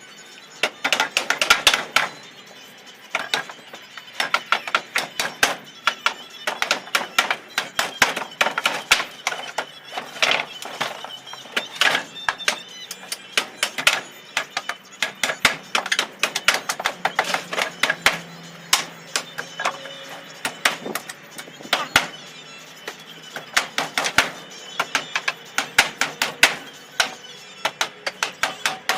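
Hammer driving nails into wooden pallet boards: quick runs of sharp blows, several a second, with short pauses between runs.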